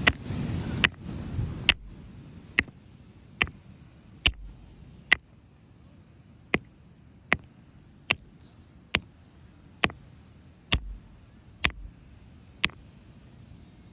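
A hand-held rock repeatedly striking another rock to split it: about fifteen sharp clacks, roughly one a second, with a short pause midway.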